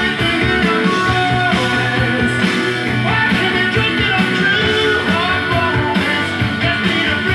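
A song with guitar and singing playing from a vinyl record on a Technics SL-3200 direct-drive turntable.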